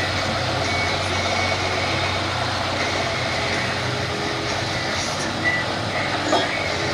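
Diesel engine of a Cockshutt 1750 pulling tractor idling steadily, with short high tones now and then over it.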